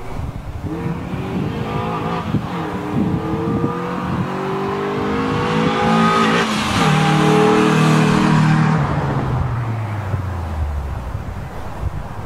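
Nissan B15 Sentra's QG18DE 1.8-litre four-cylinder, breathing through a MagnaFlow stainless exhaust with a gutted catalytic converter, accelerating past. The engine note rises, drops at a gear change about two seconds in, rises again to its loudest near the middle as the car passes, then falls in pitch and fades as it pulls away.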